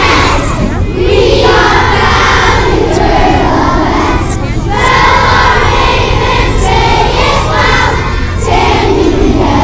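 A large group of children singing together in phrases of held notes, with many voices blending, over a steady low rumble.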